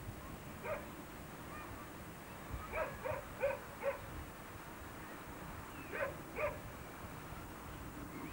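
An animal giving short, sharp calls: one, then four in quick succession, then two more, over faint steady background hiss.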